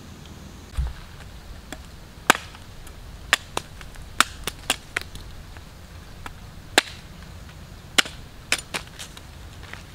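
About a dozen sharp chops, irregularly spaced, from a blade cutting into palmyra fruits, with a dull low thump about a second in.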